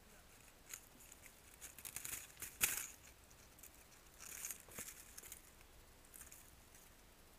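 Ghillie suit jute strands rustling and brushing right against the microphone, in scattered soft crackles, the sharpest one about two and a half seconds in.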